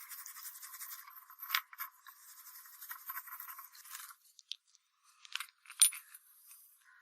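Rapid back-and-forth scraping strokes of hand work on a workpiece, stopping about four seconds in, followed by a few sharp clicks and taps, the loudest near the end.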